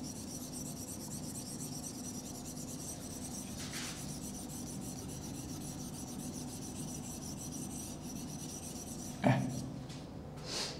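Steady rubbing on the glass face of an interactive touchscreen whiteboard as the writing on it is wiped away by hand, with a sudden short thump about nine seconds in.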